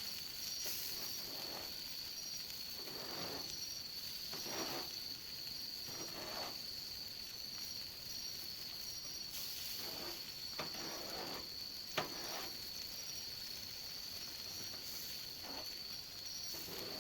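Steady hiss of a wood fire burning in a homemade oil-tin fire can with a pork block cooking on it, with soft swells every second or two. Insects trill steadily, one with a regular pulsing chirp, and there is one sharp click about twelve seconds in.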